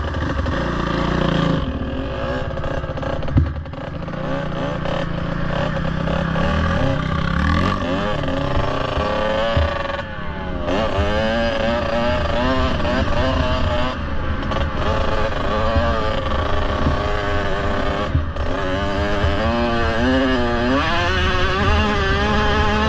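Kawasaki KX65's two-stroke single-cylinder engine revving under way on a dirt bike. Its pitch rises and falls with the throttle and gear changes, dipping briefly about ten seconds in and swooping down and back up near the end.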